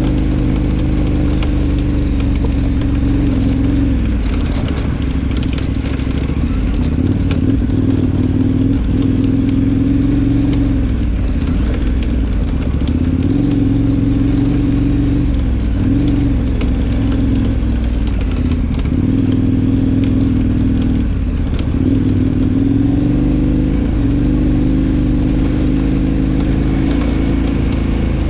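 KTM adventure motorcycle engine running under way, its note rising and falling several times with the throttle.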